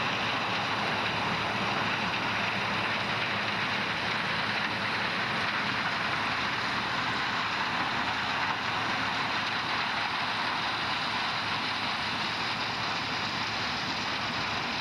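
Tractor-drawn stalk chopper running steadily in the field, an even, unbroken machine noise from the engine and the chopping.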